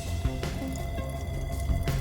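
Background music with steady held tones over a repeating low bass line.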